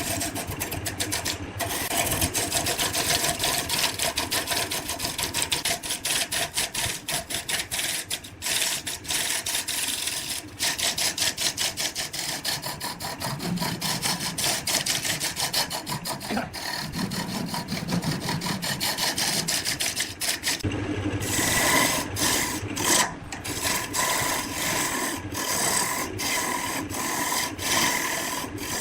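Woodturning tool scraping and cutting wood spinning on a lathe: a continuous rasping made of fast, even strokes. About two-thirds of the way in it breaks off briefly and resumes with a different texture and faint steady tones.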